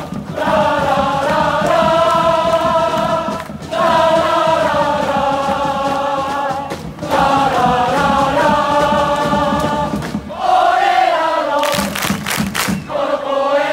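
A crowd of football supporters singing a chant in unison, in long held phrases with short breaks about every three and a half seconds. Near the end the singing gives way to a quick run of sharp rhythmic claps.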